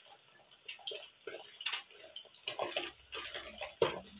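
Shredded tuna frying in hot oil in a wok, with irregular crackling and popping of spattering oil. The fish went in without its sago-flour coating.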